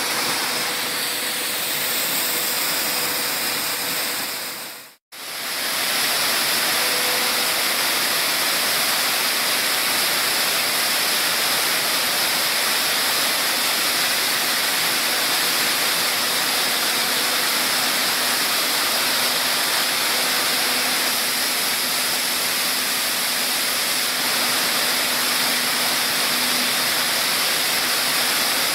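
Corn color sorter and grain-handling machinery running: a steady, dense rushing hiss as corn kernels stream through the machine. It breaks off briefly about five seconds in, then goes on unchanged.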